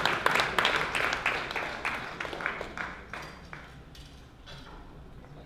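People clapping in applause, the claps distinct and evenly spaced at about four a second, dying away after about three and a half seconds into quiet room noise.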